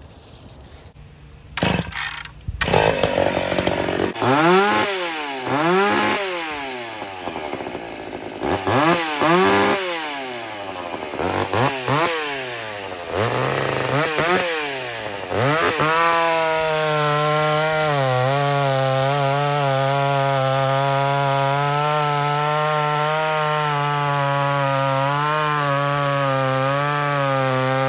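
Ported McCulloch Pro Mac 850 two-stroke chainsaw starting. Its engine is revved up and down several times, then from about 16 s in it is held at full throttle, cutting through a large log. The saw had just been re-tuned after the owner found it running too lean.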